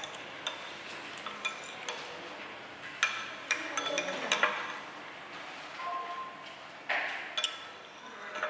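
Cutlery and dishes clinking: about ten sharp, irregular clinks with short ringing, like spoons and chopsticks striking bowls and plates while eating.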